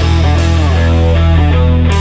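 Instrumental intro music with a heavy, sustained low end and shifting notes above it.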